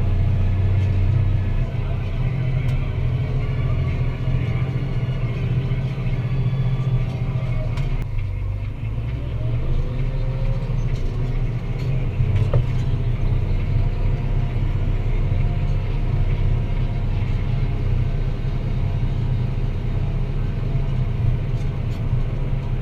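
Deutz-Fahr Agrotron 165 MK3 tractor's diesel engine running steadily under load while pulling a plough. About eight seconds in the engine note dips, then climbs again over the next few seconds.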